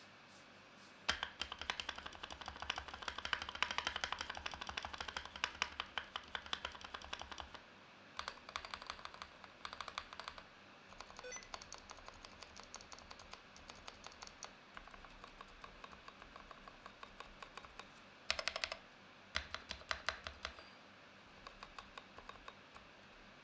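Typing on a GMMK Pro mechanical keyboard in its stock factory setup: fast runs of keystrokes with short pauses, lighter and sparser toward the end. The owner finds the factory stabilizers over-lubed.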